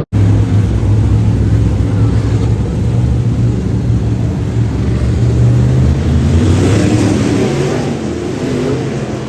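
Dirt-track modified race car engine running steadily, then wavering up and down in pitch over the last few seconds, with a rush of noise around the same time.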